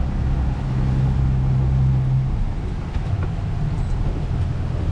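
Boat engine running at low speed, a steady drone that drops to a lower note a little over two seconds in as the boat slows over the spot.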